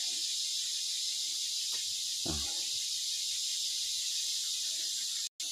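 Steady, high-pitched chorus of rainforest insects, with one brief low sound a little over two seconds in.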